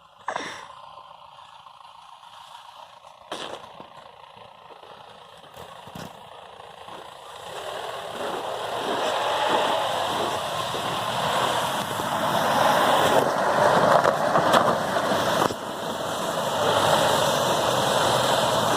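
Off-road 4x4 vehicle running, with a few sharp clicks in the first six seconds, then a steady rushing engine and road noise that grows louder from about seven seconds in.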